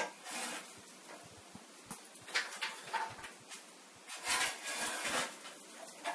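Plastic bottles being handled on a counter, with short rustling and knocking sounds, then a squeeze bottle being emptied onto a cut plastic trap panel, a hissing squirt of about a second around four seconds in.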